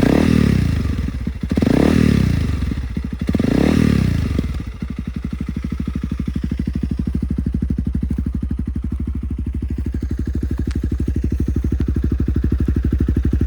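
Honda CRF300L single-cylinder four-stroke engine breathing through a budget aftermarket muffler repacked with fiberglass. It is blipped up three times to about 4,500–5,000 rpm, the pitch rising and falling each time, then drops back to a steady idle about five seconds in.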